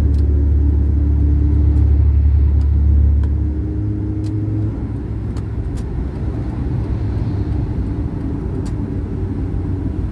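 Car heard from inside the cabin at highway speed: engine drone and road noise, with the engine loud under acceleration before easing off about three to five seconds in. A few faint ticks come through over the steady noise.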